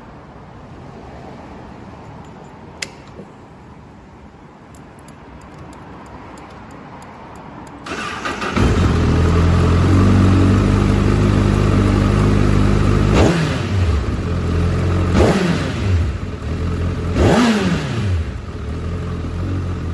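Honda CBR1000RR inline-four with an aftermarket TSR muffler. A short click about three seconds in, then the engine starts about eight seconds in, a brief crank before it catches and settles into a steady idle. It is revved three times near the end, each blip rising and falling back to idle.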